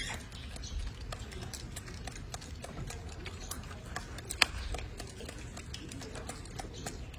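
Scattered light clicks and taps at an irregular pace, one sharper tap about four seconds in, over a low steady hum.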